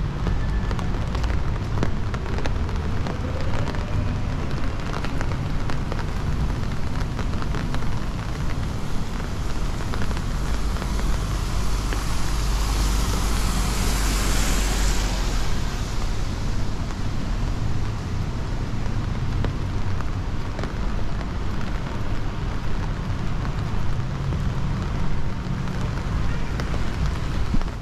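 City street ambience: a steady rumble of traffic, with a louder rushing hiss that swells and fades about halfway through.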